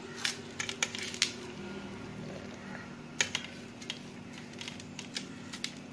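Scattered light clinks and taps of steel utensils and plates against a metal vessel as vegetables are tipped into batter, over a steady low hum.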